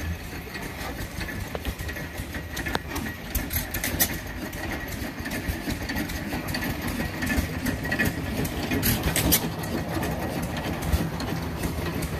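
300-horsepower Corliss stationary steam engine running steadily: a continuous mechanical clatter with occasional sharp clicks and knocks from the moving gear.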